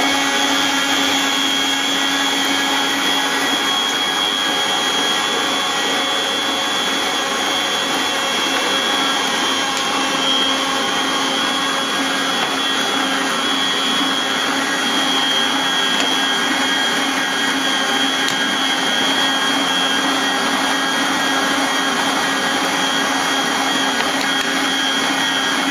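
Household stand mixer's motor running steadily at its top speed, a constant hum with a high whine, as it kneads a very wet pizza dough.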